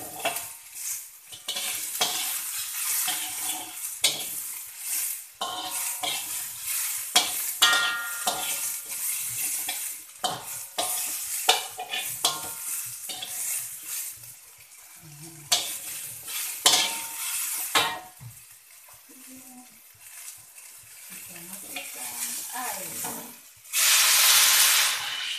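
Slotted metal spatula scraping and clacking against a metal wok as shallots and ginger stir-fry in sizzling oil. Near the end, a bowl of water poured into the hot wok sets off a loud burst of hissing for about a second and a half.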